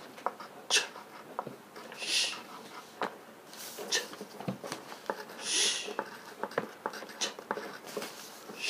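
A man's voice sounding out the phonics sounds "ch" and "sh" on their own: short hissing bursts every couple of seconds, with faint clicks between them.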